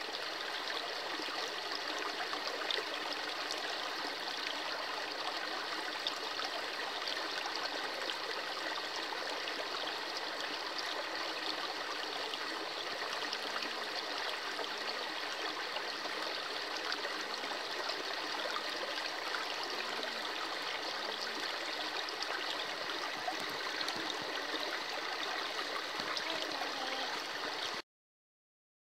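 A small forest stream running and splashing down a shallow cascade over stones and leaf litter, a steady rush of water that cuts off suddenly near the end.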